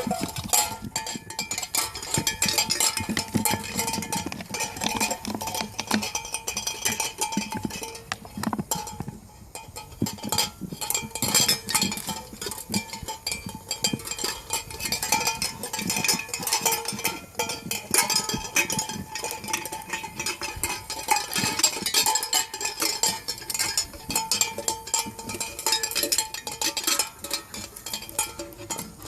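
Chocolate Labrador puppies at play: a steady, busy clatter of quick clicks and clinks.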